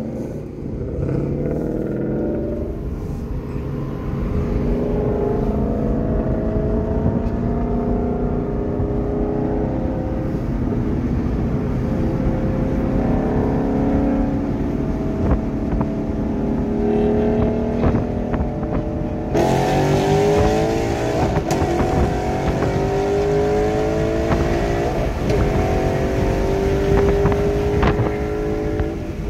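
Ford Mustang 5.0 V8 engines accelerating hard through the gears, each note rising and then dropping at a shift, heard from inside a following car. About two-thirds of the way in, a sudden rush of wind noise joins.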